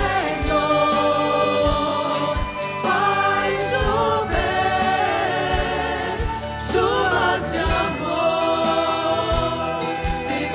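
Group of women's and men's voices singing a devotional hymn through microphones, the melody carried with vibrato, over a low beat that recurs about once a second.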